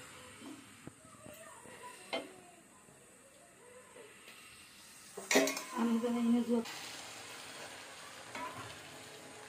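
Wooden spatula stirring rice and lentils in a sizzling pot, with scraping and a few sharp clicks against the pot. About five seconds in, a sharp knock followed by a short steady tone.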